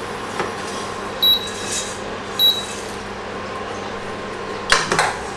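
Two short, high electronic beeps about a second apart over a steady background hiss, then a brief clatter of clicks near the end, like metal cookware being handled.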